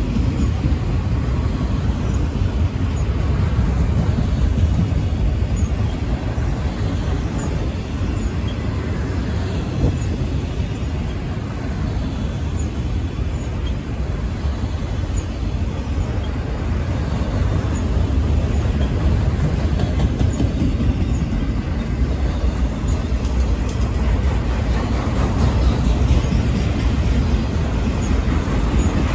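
Freight train of multilevel autorack cars rolling past: a steady rumble of steel wheels on rail.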